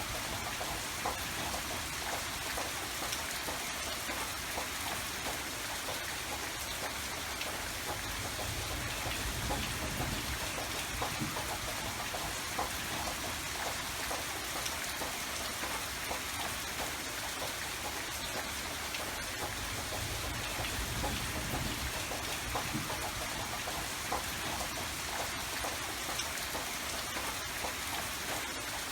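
Steady rain falling, with many small drops pattering on a surface.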